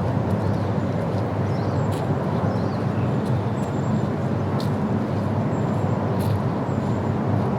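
Steady low rumbling noise, with a few faint high chirps of birds over it.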